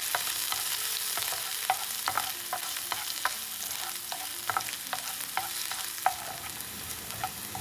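Crushed garlic and ginger sizzling in hot coconut oil in a pan while being stirred, the spoon clicking against the pan about twice a second over a steady frying hiss.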